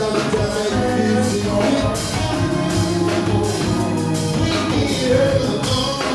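Live soul band playing, with a singer's voice over drums and percussion.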